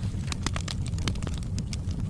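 Wood fire crackling in a fireplace: quick, irregular snaps and pops over a steady low rumble of the flames.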